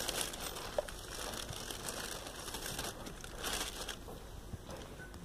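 Faint rustling and crackling over a quiet room hiss, with a few scattered light clicks.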